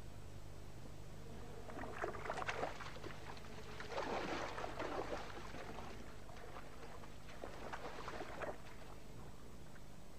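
Water splashing in three bursts, about two, four and seven and a half seconds in, as fishing raptors strike the lake surface with their talons and beat up out of the water with a fish.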